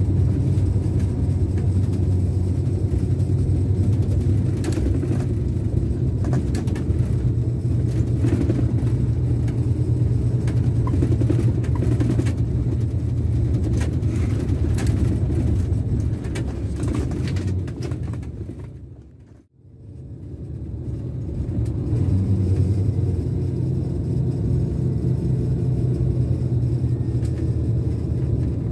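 Scania K410 coach's DC13 inline-six diesel heard from inside the upper deck while driving, a steady low rumble with scattered light ticks and rattles through the first half. About nineteen seconds in, the sound fades out to almost nothing and fades back in.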